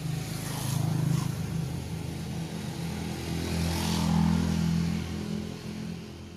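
Engine noise of passing road traffic: a low hum that swells about a second in and again around four seconds, then fades.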